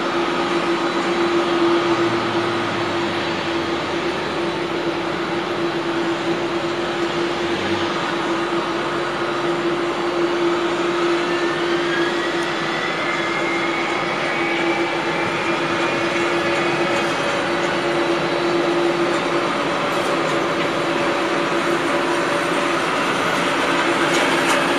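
Boeing 767 jet engines running at taxi power: a steady rushing roar with a held hum, and from about halfway through, high whining tones that drift in pitch.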